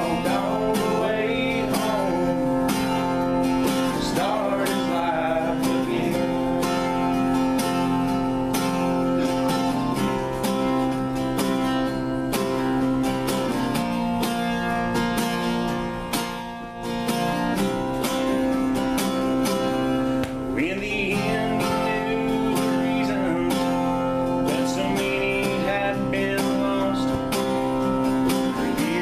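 A live acoustic string band plays an old-time country tune on strummed and picked acoustic guitar, resonator guitar and banjo, with voices singing in places. There is a brief lull about sixteen and a half seconds in.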